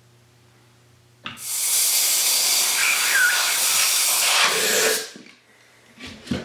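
Compressed air hissing hard and steadily for about three and a half seconds, starting about a second in, from a blow-gun nozzle pushed between a plastic mixing cup and a cured resin casting to blow the casting free. Two short knocks follow near the end.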